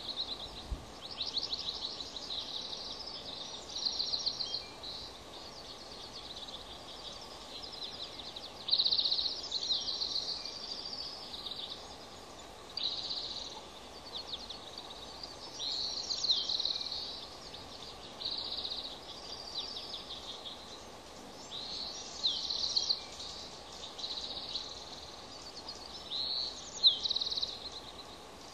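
Birds chirping in short, high phrases every second or two, some trilled and some with quick falling notes, over a steady faint hiss.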